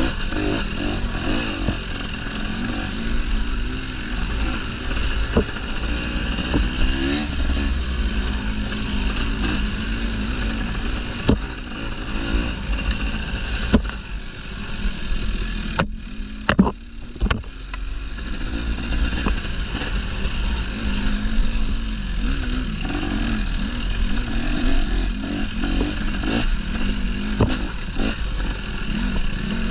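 Dirt bike engine running on a singletrack trail, its pitch rising and falling with the throttle, with scattered knocks and clatter from the bike over the ground. About sixteen seconds in the engine drops off briefly amid a few sharp clicks, then picks up again.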